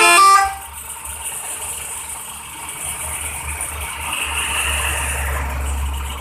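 The last notes of a telolet musical horn cut off about half a second in. A heavy vehicle's engine keeps running with a low rumble and some rattle, growing a little louder near the end.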